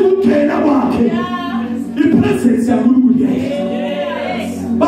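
A man singing a gospel chorus into a microphone through the PA, holding two long wavering notes.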